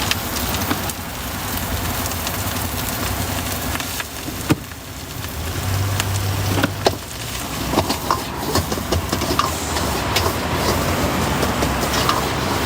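Busy street ambience: a steady wash of noise with scattered clicks and clatters, and a brief low hum about six seconds in.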